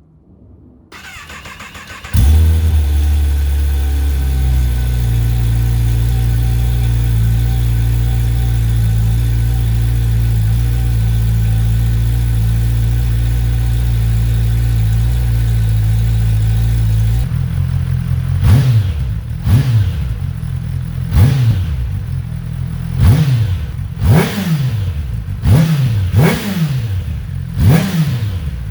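A 2020 Kawasaki Ninja ZX10R's inline-four on its stock exhaust is cold-started: the starter cranks briefly and the engine catches about two seconds in. It settles into a steady fast cold idle, then from about 17 seconds in the throttle is blipped about eight times in quick succession, each rev rising and falling.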